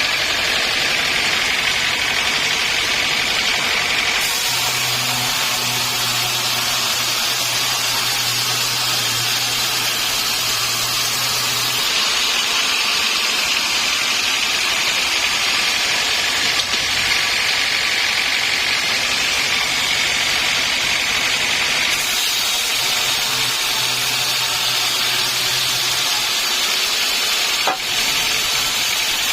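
Sawmill saw cutting through a log: a loud, steady noise that shifts in character several times as the cut goes on, with a low machine hum in two stretches.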